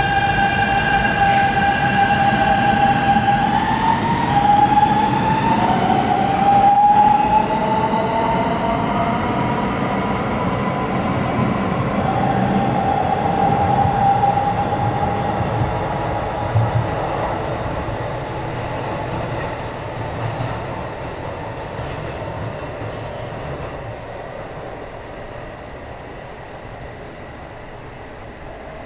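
Electric train's VVVF inverter and traction motors pulling away, likely a Keikyu 1000 series with Siemens GTO-VVVF control: a steady tone, then from about four seconds in a pitch that climbs in steps like a musical scale as the train accelerates. It fades out over the wheel rumble as the train draws off.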